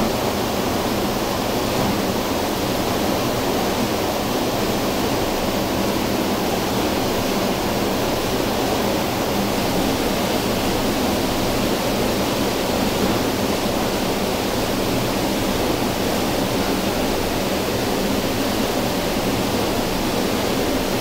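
Steady, even rushing roar of a hydroelectric powerhouse, like running water, with no breaks or strokes.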